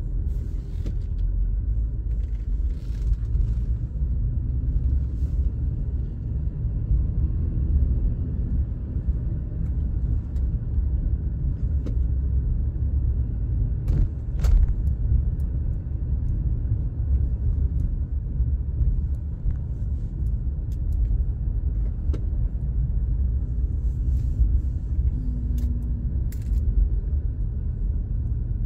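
Steady low rumble of a car driving, heard from inside the cabin: engine and road noise, with a couple of faint clicks about halfway through.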